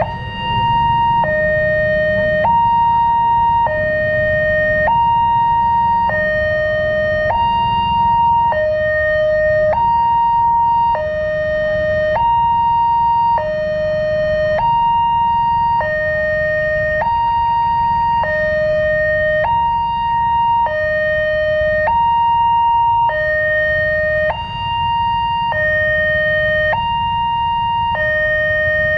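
Indonesian railway level-crossing alarm sounding a two-note chime, a higher and a lower note alternating evenly about every second and a quarter. It is the new melodious alarm typical of Daop 8 Surabaya crossings. A steady low rumble of waiting traffic lies beneath it.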